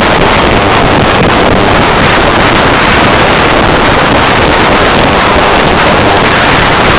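Dense, loud wall of static-like noise filling every register from deep rumble to high hiss, steady and unbroken with no beat or melody: a harsh noise music recording.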